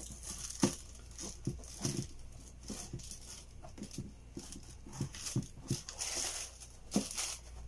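Hands handling a sneaker, with irregular soft knocks and taps as its laces are pulled through the eyelets and the shoe shifts on the table. Bursts of tissue paper rustling come about six and seven seconds in.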